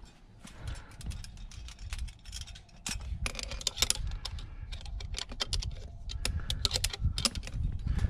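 Climbing quickdraw carabiners clicking and jingling against a bolt hanger as the quickdraw is clipped to the bolt and handled, in rapid runs of clicks, busiest about three seconds in and again near the end, over a low rumble.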